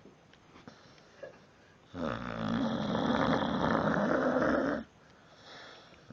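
Staffordshire bull terrier snoring: one long snore that starts about two seconds in and lasts nearly three seconds, followed by a much fainter breath.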